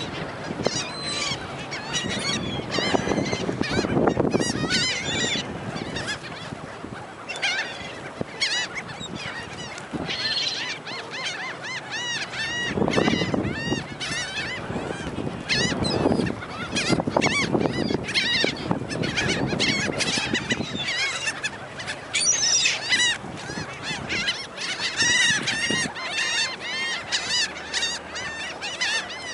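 A flock of gulls calling over and over, many short squawks overlapping as they feed, with a low rushing noise underneath at times.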